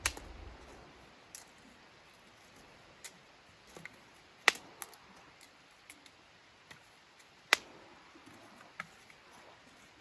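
Dry sticks being handled and set down on leaf litter: a scatter of sharp cracks and clicks, two much louder ones about four and a half and seven and a half seconds in, over faint rustling.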